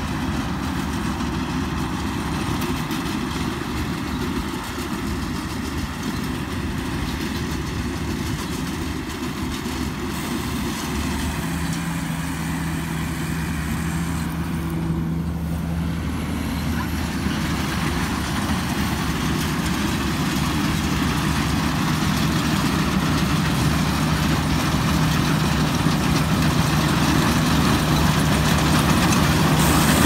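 Diesel engine of a Kaset Pattana rice combine harvester, a Hino 195 turbo, running steadily under load while it harvests. It gets steadily louder as the machine comes closer.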